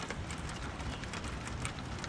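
Rain falling in a thunderstorm, many separate drops striking close by in an irregular patter over a steady low rumble.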